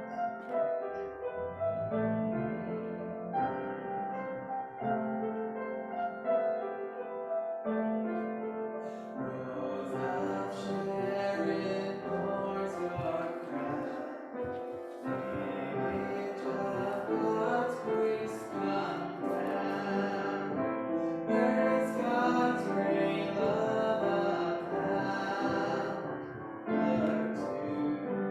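Live piano music, a classical-style piece of held notes, growing fuller about ten seconds in.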